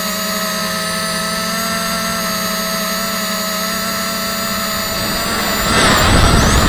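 Quadcopter's electric motors and propellers whining steadily with several constant tones. About six seconds in the sound gets louder and rougher, a surge of motor and air noise.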